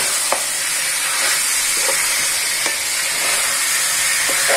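Beef pieces sizzling steadily in oil and spice paste in a karahi while a wooden spatula stirs them, with a few short scrapes and knocks of the spatula against the pan. This is the kosha stage, the meat being slow-fried with its spices.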